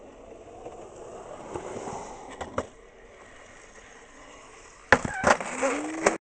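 Skateboard wheels rolling steadily over pavement with a couple of sharp clacks, then a run of loud clattering knocks near the end. The sound cuts off suddenly.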